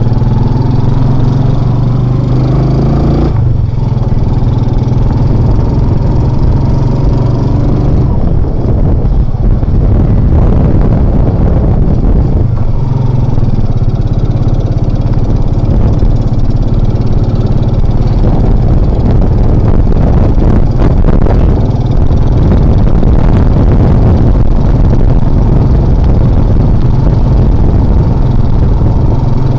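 Motorcycle engine of a Philippine tricycle running continuously under the passenger sidecar, loud and steady. Its note changes about three seconds in as the ride goes on.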